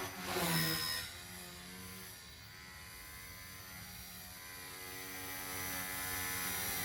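XK K110S micro RC helicopter's electric motor and rotor whining in flight, the pitch wavering with throttle and growing louder toward the end. Some gear noise comes from nicks on the main gear, which the owner says sounds smoother when new.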